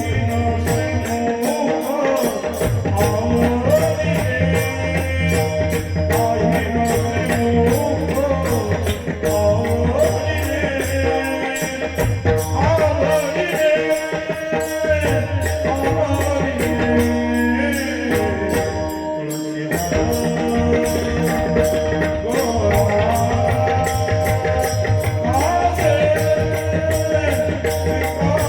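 A male singer's voice in a Warkari devotional bhajan, held long melodic phrases over a steady sustained accompaniment, with jingling percussion keeping an even beat.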